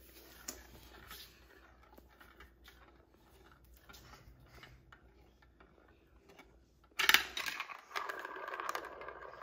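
A marble rolling round a plastic funnel bowl of a VTech Marble Rush marble run, quietly and with faint ticks. About seven seconds in it drops through the hole with a loud clack onto the funnel below and rattles as it rolls around it.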